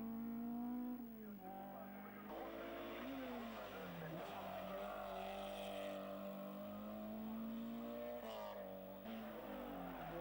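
Racing hatchback engines revving hard up a hillclimb, the pitch climbing and then dropping sharply several times with gear changes and lifts into the bends. Tyre squeal comes in about halfway through.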